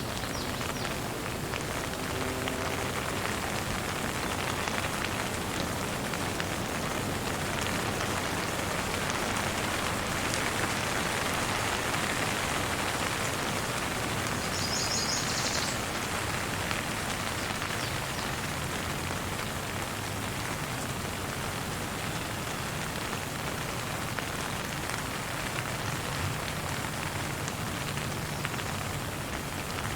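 Steady rain falling, an even patter at a constant level throughout.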